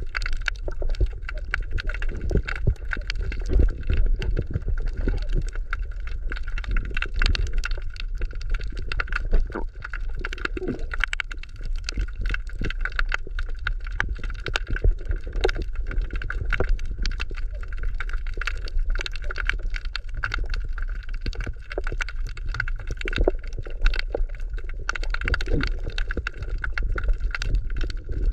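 Underwater ambience picked up by a submerged camera: a steady low rumble of moving water with dense crackling clicks throughout.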